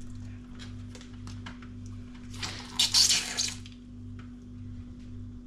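Dirty water and gunk spluttering through a hand suction tool as it is drawn out of a blocked fridge drain hole. There is one loud splutter of about a second in the middle, with a few faint clicks, over a steady low hum.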